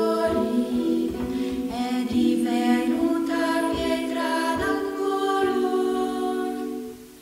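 Background vocal music: a choir singing slow held notes, fading out near the end.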